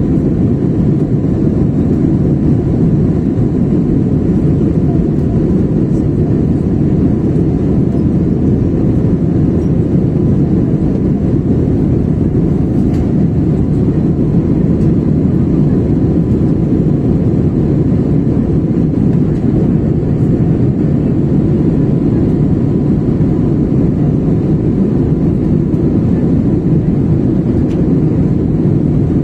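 Cabin noise of an Airbus A320-family jet airliner in flight: the steady, low rush of the engines and airflow, heard inside the cabin.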